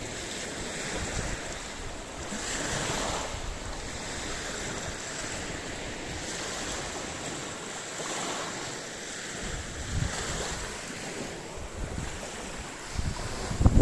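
Sea waves breaking and washing up the shore in slow surges, with wind gusting on the microphone.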